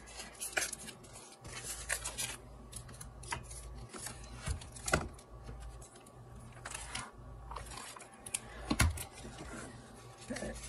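Paper journaling cards and plastic page protectors being handled: light rustling with scattered taps and clicks, two sharper clicks about five and nine seconds in.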